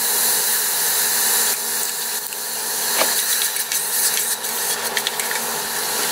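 Chopped onions sizzling in hot vegetable oil in a stainless steel stock pot, a steady hiss, with a few light knocks of a wooden spoon stirring them.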